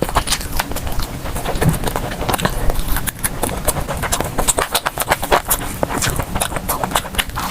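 Close-miked chewing, with a rapid, irregular run of wet mouth clicks.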